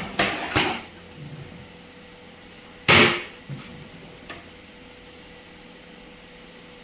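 A few sharp knocks and clatters of hard objects, the loudest about three seconds in, followed by two fainter taps, over a faint steady hum.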